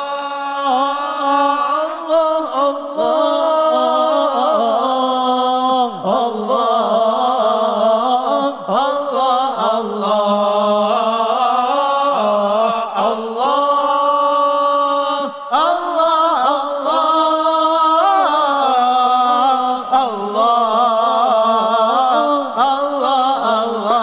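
Male voices singing an Islamic sholawat chant with long, bending held notes, without the hadrah drums.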